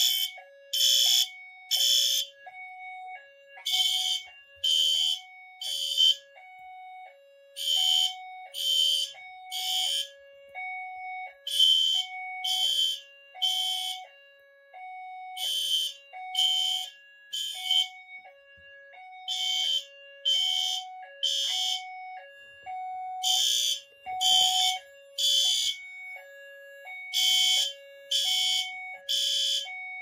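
Two ceiling-mount fire alarm horn strobes, a System Sensor L-Series LED and a Spectra Alert Classic, sounding together on System Sensor sync in the code-3 temporal evacuation pattern: three short blasts, a pause, and the cycle repeating about every four seconds. A lower two-note tone alternates steadily beneath the blasts.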